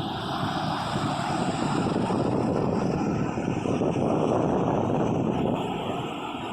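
Ocean surf breaking on a beach: a steady rush of water that swells louder about a second and a half in and eases off near the end.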